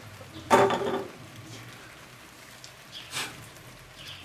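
Short clatter of plates and cutlery about half a second in, and a fainter clink around three seconds in.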